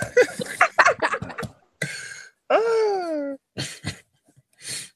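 People's voices making sounds without clear words: short breathy vocal bursts, then a drawn-out vocal tone that falls in pitch about two and a half seconds in.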